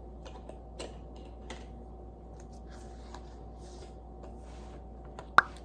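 Small desk-work sounds of studying: light scattered clicks and taps and soft scratchy strokes, over a faint steady hum. One sharp click stands out near the end.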